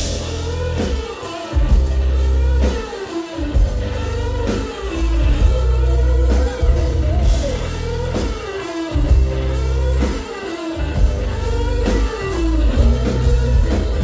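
Rock band playing live without vocals: electric guitar, bass guitar and drum kit, with repeated sliding guitar lines over a heavy bass and drums.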